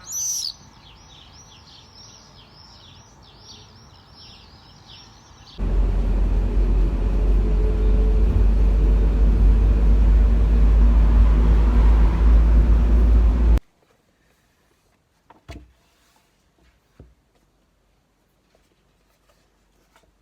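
Birds chirping in fast, repeated high calls, then a loud, steady low rumble that starts and stops abruptly, then near silence with a few soft clicks.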